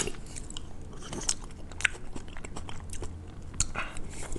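Close-up eating of raw marinated crab: biting and chewing with many short, irregular clicks and crunches.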